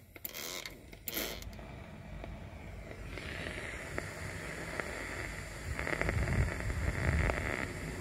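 Two short squirts of a trigger spray bottle of leak-detection soap near the start. Then a refrigerant leak in a copper coil is heard through an AccuTrak VPE ultrasonic leak detector played on a speaker: a steady hiss with faint crackles, louder for a couple of seconds near the end as the soap goes over the leak.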